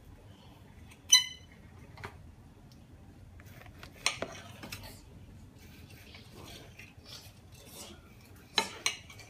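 Kitchen knife cutting through thawed meat on a ceramic plate, the blade scraping and clinking against the plate. A sharp, ringing clink about a second in, with louder clinks again around four seconds and near the end.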